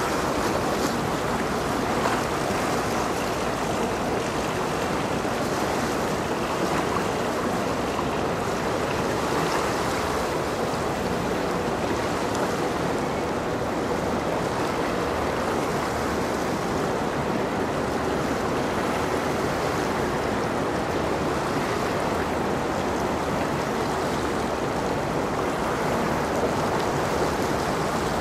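Choppy water and a passing ship's wake splashing and lapping in a steady wash, with a faint steady hum from the passing general cargo ship.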